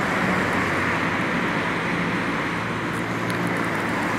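Steady road traffic noise: an even hiss of passing vehicles with a low engine hum underneath.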